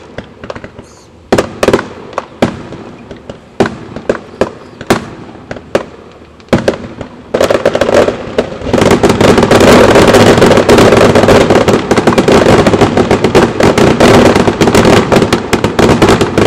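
Aerial fireworks show: separate shell bursts bang about once a second, then, about seven seconds in, the finale barrage sets in, a dense unbroken run of rapid, loud bangs.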